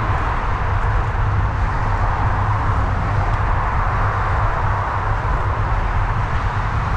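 Steady wind rumble on the microphone of a moving bicycle, over a continuous hiss of highway traffic.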